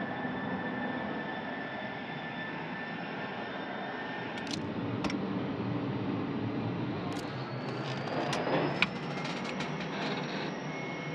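Steady jet aircraft engine noise with a thin high whine over a rushing roar. A few sharp clicks come near the middle, and a second whine rises slowly in pitch over the last few seconds.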